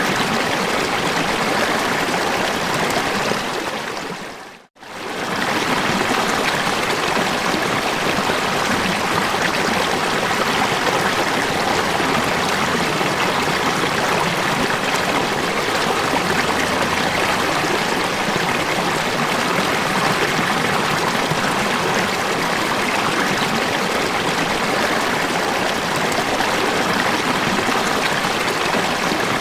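Steady noise of falling water, as from a waterfall or stream. About four seconds in it fades out to near silence for a moment and fades straight back in.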